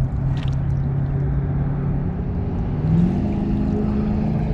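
An engine running steadily with a low hum, its pitch rising and holding higher about three seconds in, as when the engine speeds up.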